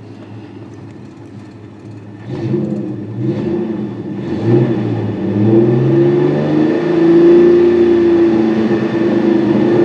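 V6 car engine running at idle, then revved about two seconds in, its pitch wavering up and down before being held at a raised speed. The engine has a random cylinder misfire (P0300), with bank 1 running lean and bank 2 running rich.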